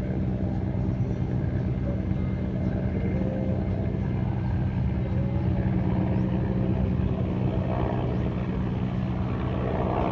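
Military helicopter flying at a distance: a steady low drone with a rapid flutter from its rotor.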